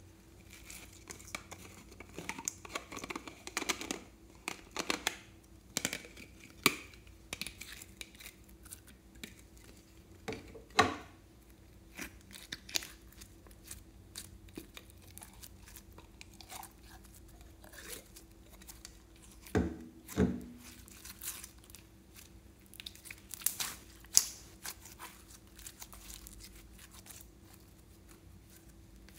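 Blue glitter slime squeezed from a plastic bottle and worked by hand over a glass dish of glitter and foil beads: irregular crackling, crinkling and sticky clicks, with two dull knocks about twenty seconds in.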